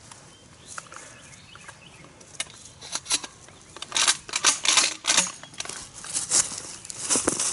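Irregular bursts of crackling and thrashing in dry leaves, sparse at first and busy from about four seconds in: a shot wild turkey gobbler flopping its wings in the leaves.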